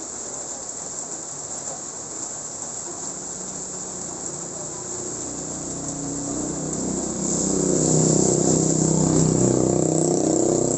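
Steady hiss of rain falling on a wet street, with a low rumble that builds from about six seconds in and is loudest near the end.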